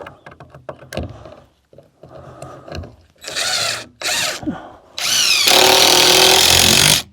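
Small clicks and rattles of screws being handled, then a power drill in two short bursts. About five seconds in it spins up and runs steadily for about two seconds, driving a screw into wood, then stops abruptly.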